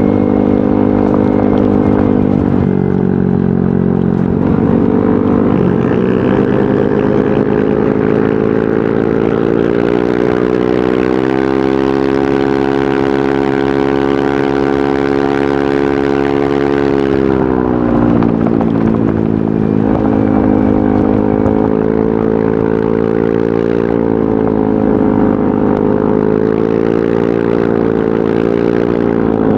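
Yamaha NMAX 155 scooter's single-cylinder four-stroke engine running through a VMAX Onyx aftermarket muffler. The note rises and falls with the throttle: it climbs about ten seconds in, holds steady at higher revs, drops back about seventeen seconds in, then picks up again.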